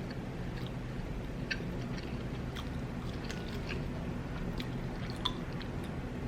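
Close chewing of a flaky Jamaican beef patty, with scattered small crackles from the pastry, over a steady low hum.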